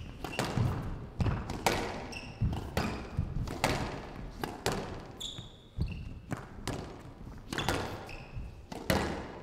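Squash rally: the ball struck by the rackets and smacking off the walls about once a second, with short high squeaks from the players' shoes on the court floor.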